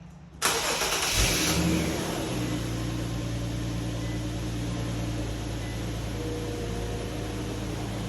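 2014 Infiniti Q50's engine starting about half a second in, flaring up loudly for a second or so, then settling to a steady idle. It is the first start on fresh oil after an oil change, run to circulate the new oil.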